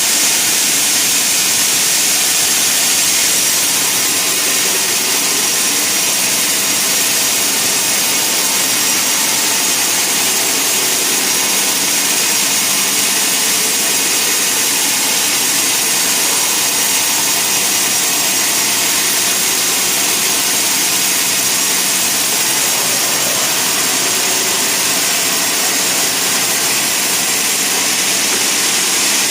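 Sawmill machinery running steadily: a loud, unchanging rushing noise, strongest in the high range, with no pauses or separate strokes.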